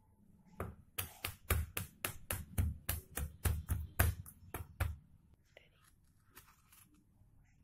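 Chef's knife chopping garlic cloves on a plastic cutting board: a fast run of sharp knocks, about four a second, that stops about five seconds in, followed by faint light handling sounds.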